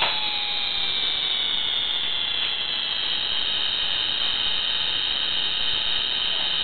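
Toy easyJet airliner's electronic jet-engine sound effect: a loud, steady, high-pitched howl with a hiss, its tones slowly falling in pitch, with a click near the start.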